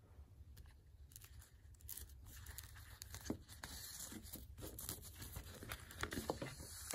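Faint rustling and rasping of thread being drawn through the sewing stations of a hand-sewn Coptic-bound book, with paper and board pages shifting as they are handled. Irregular small clicks and scrapes grow busier in the second half.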